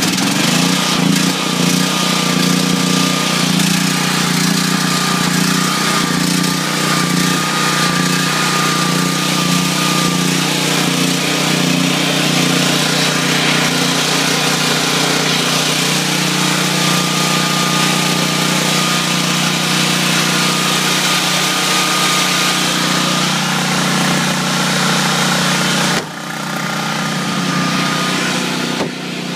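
Generac XG8000E portable generator's engine running steadily just after an electric-key cold start on full choke, its first run in about three months. A steady hum with a thin high whine that comes and goes; near the end the level dips briefly and recovers.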